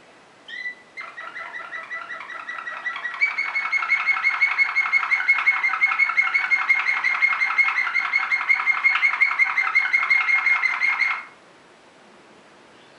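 Waterslager (Malinois) canary singing: a brief note, then one long rolling tour of rapid, evenly repeated notes at about seven a second. It grows louder about three seconds in and breaks off abruptly after some ten seconds.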